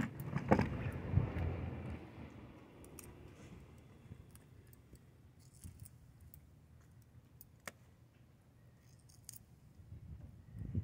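Metal pliers clicking in scattered single clicks while skinning a catfish's tail, after about two seconds of rustling handling noise at the start.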